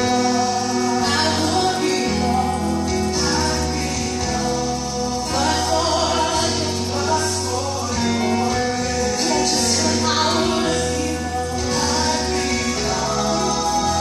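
Gospel music with a choir singing over a steady bass line.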